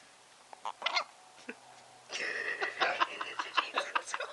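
Shih-tzu puppy gnawing at a hard lollipop: a few clicks early, then a brief high squeaky sound about two seconds in, followed by a quick run of sharp clicks from teeth on the candy.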